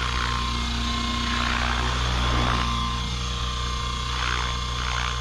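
Align T-Rex 650X electric RC helicopter in flight: the steady hum of its main rotor and motor, with a high whine over it.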